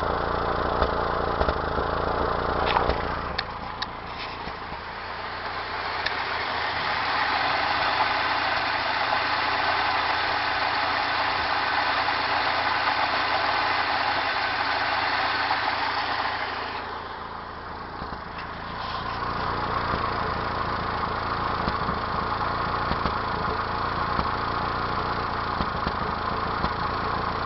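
1992 Mazda B2600's four-cylinder engine running at idle with a misfire whose cause is unknown. About three seconds in the low engine note falls away and a higher, hissier sound takes over. The lower running sound comes back a little past the middle.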